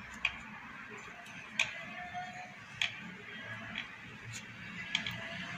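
Light plastic clicks, five of them about a second apart, as foam darts are pushed into the plastic barrels of a Blaze Storm manual soft bullet toy gun.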